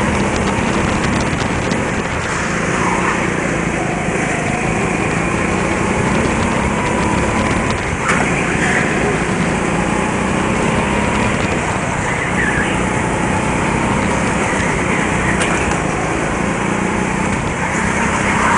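Small go-kart engines running at speed, heard from the driver's seat: the steady drone of the kart's own engine with other karts close by. The engine pitch rises and falls a little, and a few brief high squeals come through now and then.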